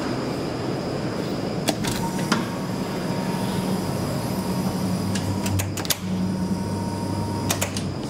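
Inside a hydraulic elevator car: several sharp clicks from the push-buttons and door hardware, and a faint steady high tone for a few seconds, over a steady low hum and rumble.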